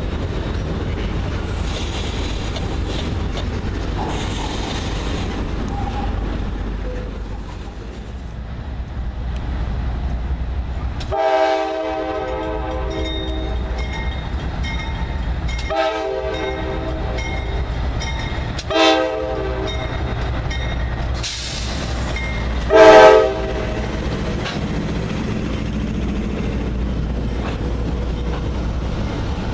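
Freight train rumbling steadily past while the leading CSX diesel locomotive sounds its air horn four times, the last blast the loudest.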